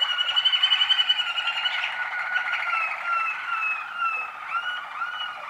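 Young Waterslager song canary singing. It opens with a fast rolling, pulsed trill, then moves into a run of short falling whistled notes, with a few short rising notes near the end.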